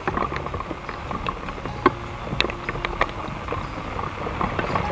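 Rain falling, with single drops tapping irregularly close by over a steady low rumble.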